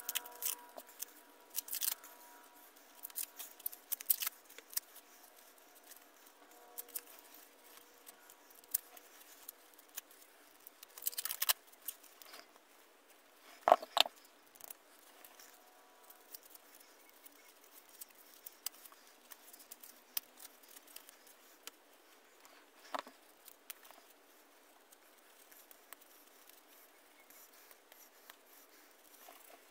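Scattered light clicks and taps of the old hand drill's small metal parts being handled and set down, with the sharpest knock about fourteen seconds in.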